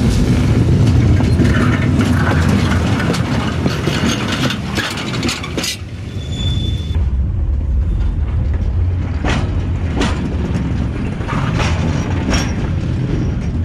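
Railway coach wheels rolling along jointed track: a steady heavy rumble with sharp clacks each time a wheel crosses a rail joint. In the second half the clacks come as separate strikes, a few at a time.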